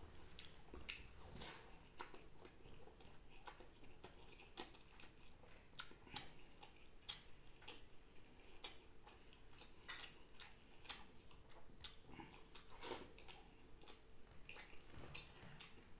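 Eating by hand: wet smacks and squishes of rice and curry being mixed with the fingers and chewed, heard as irregular short clicks. A faint steady hum runs underneath.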